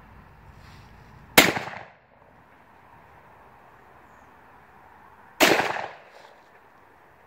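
Two shots from a Kofs Sceptre SXE .410 shotgun about four seconds apart, each a sharp report with a short echo tail.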